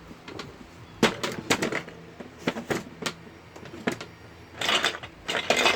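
Hard plastic Duplo bricks clacking against each other and the table as they are handled: scattered sharp clicks, then two quick runs of clattering near the end.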